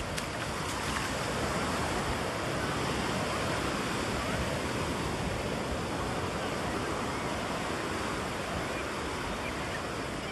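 Ocean surf: small waves breaking and washing up the sand in a steady rush that swells a little over the first couple of seconds.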